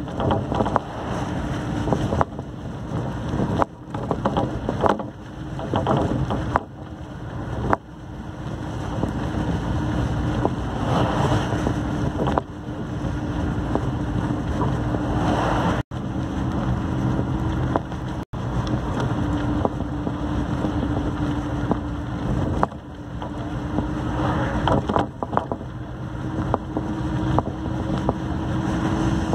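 Inside a moving road vehicle: a steady engine hum under rushing road and wind noise that swells and fades. The sound cuts out for an instant twice, a little past the middle.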